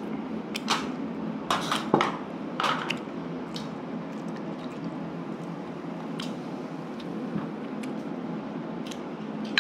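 Beer poured from a plastic bottle into a bowl, after a few sharp clicks and knocks of the bottle and dishes in the first few seconds.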